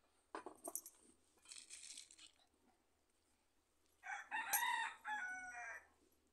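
A rooster crows once, about four seconds in, a call of nearly two seconds in several parts. Before it, a few light clicks and a short scrape.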